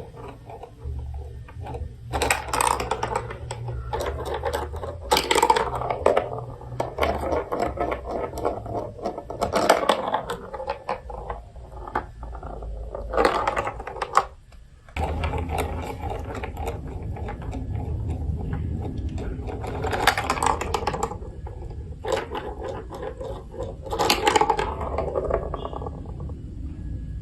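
Marbles rolling and clattering through a plastic building-block marble run: a continuous low rolling rumble under dense clicks and rattles, with a short lull about halfway through.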